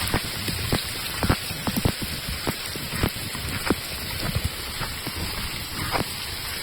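Steady rain falling, with many irregular sharp taps of large individual drops striking close by.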